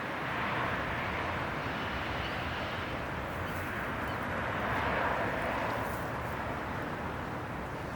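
Steady outdoor background rumble and hiss with no single event standing out, swelling slightly a little past the middle, in the way of distant traffic.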